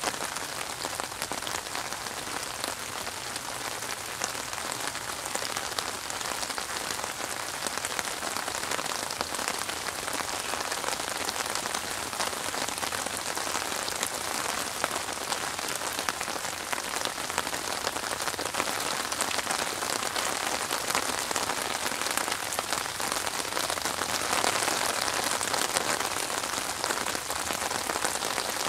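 Steady rain falling on open water: a dense hiss made of countless small drop splashes on the surface, growing a little louder in the last few seconds.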